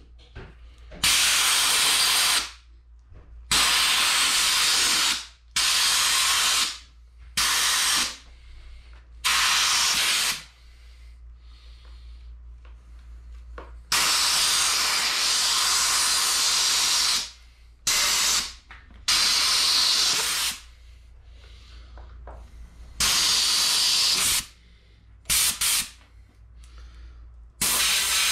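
Compressed-air blow gun hissing in about ten bursts of half a second to three seconds each, with short gaps between. The air is being blown in behind a rubber handlebar grip that is stuck on with spray paint, to loosen it so it can be twisted off.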